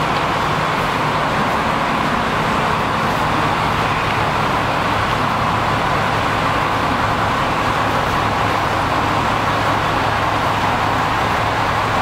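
A bus running at steady speed: a constant low engine hum under even road and running noise, with no change in pitch or level.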